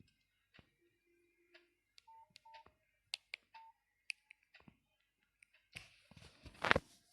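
Short electronic beeps and clicks from a Nokia 6500 slide mobile phone: a few sparse blips and short beeps, then a brief louder burst of noise near the end.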